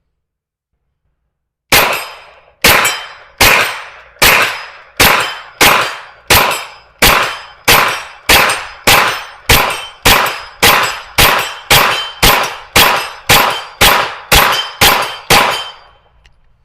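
Smith & Wesson FPC 9mm carbine fired semi-automatically in a steady string of 23 shots, about one and a half to two a second and quickening slightly, emptying the magazine. Each report trails off in a ringing tail.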